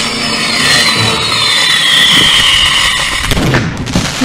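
Homemade firework burning with a loud hiss and a thin whistle that falls slowly in pitch, then going off in a burst of bangs about three seconds in.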